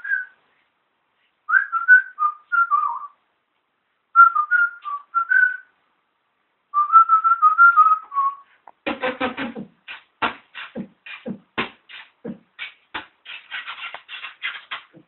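A man whistling a short tune in phrases with pauses between them. About nine seconds in he switches to beatboxing: a rhythm of sharp mouth clicks and deeper thumps, a few per second.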